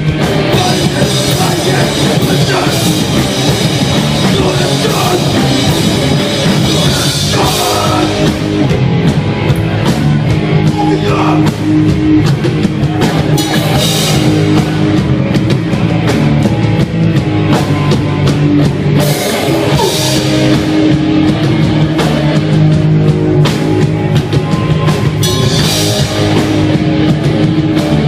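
Hardcore punk band playing live: loud distorted electric guitars, bass and a drum kit pounding along without a break.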